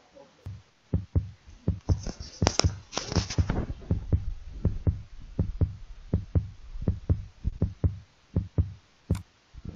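Heartbeat sound effect: a steady lub-dub rhythm of paired low thumps, the heart contracting and relaxing in rhythm.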